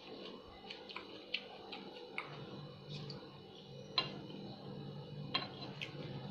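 Scattered light clicks and ticks of eating rice and curry by hand from a steel plate, a few with a short metallic ring, over a steady low hum.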